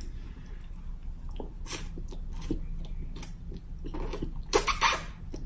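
A person slurping and chewing chow mein noodles: a run of short wet mouth sounds, the loudest and longest slurps about four and a half seconds in.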